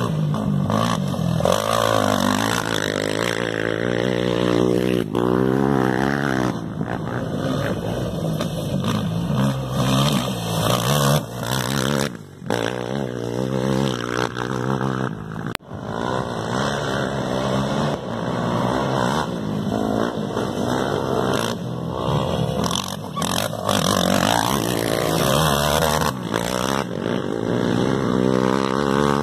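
Off-road race vehicle engines revving hard as they pass one after another on a dirt track, the pitch rising and falling with the throttle. A brief lull about twelve seconds in.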